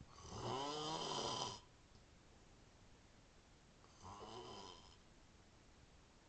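A sleeping man snoring: two snores about three and a half seconds apart, the first louder and longer than the second.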